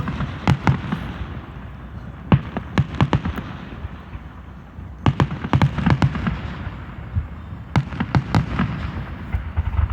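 Fireworks finale: a rapid barrage of aerial firework bursts, sharp bangs coming in quick clusters with short lulls between them.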